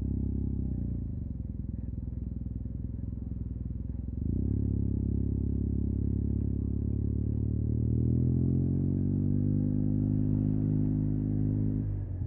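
Yamaha TMAX 560 maxi-scooter's parallel-twin engine through an Akrapovic carbon full-system exhaust, heard from the rider's seat in stop-and-go traffic. It eases off about a second in, picks up on the throttle about four seconds in, climbs in pitch as it accelerates, holds, then drops off as the throttle closes near the end.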